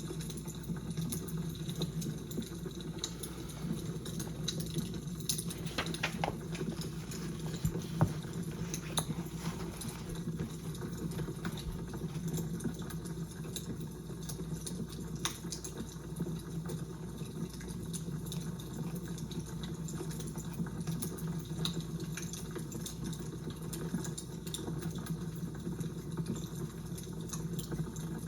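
Fire crackling: a steady hiss with frequent small, irregular pops and crackles, and one sharper pop about eight seconds in.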